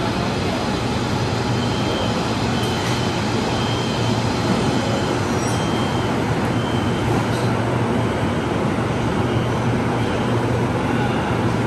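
Steady hum of a stationary LRT train standing at an elevated station platform, mixed with station noise, with a few short high beeps at intervals.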